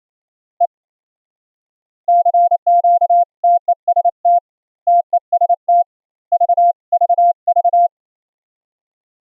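Morse code sidetone from an UltraPico keyer: one steady mid-pitched tone keyed on and off in dots and dashes, a single short dit followed by about six seconds of sending in character groups. The note is clean, its square-wave harmonics filtered out by a bandpass filter chain.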